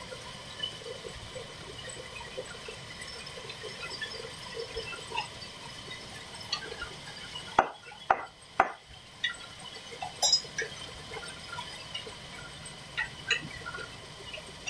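Light clinks and taps of metal hand tools being handled on a band saw's table, with three sharp knocks in quick succession about halfway through.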